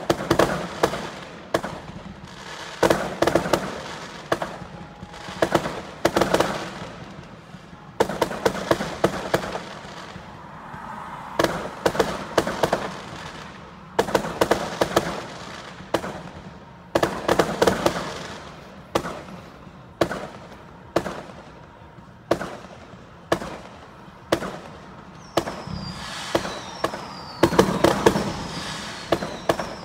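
A fireworks display: clusters of sharp aerial-shell bangs and crackle come in quick volleys every second or two. Near the end, several whistles fall in pitch among the bangs.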